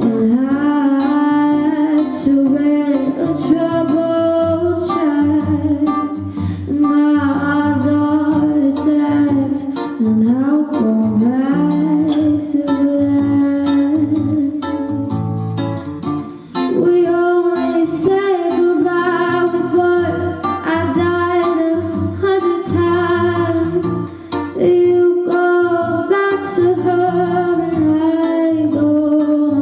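A woman singing a slow song in a sustained, melodic line over a plucked guitar accompaniment.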